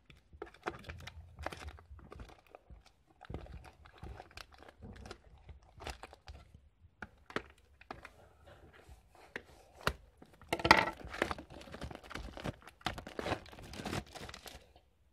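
Plastic shrink-wrap being torn and peeled off a cardboard booster box: irregular crinkling and tearing with scattered small clicks, and a louder stretch of crackling about ten and a half seconds in.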